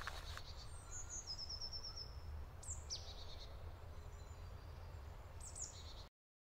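Faint woodland birdsong: scattered high chirps, a short trill of quick repeated notes and a falling call, over a low steady rumble. The sound cuts off abruptly near the end.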